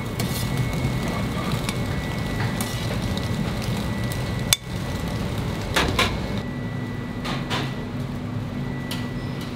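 Steady background noise with a faint high whine, broken by several sharp knocks: the loudest about halfway through, a double knock about six seconds in, and a few lighter ones near the end.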